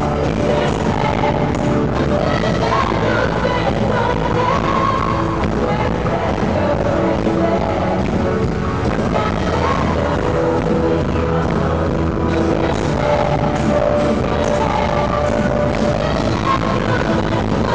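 Live worship band music played at a steady loudness, with a singing voice over the band.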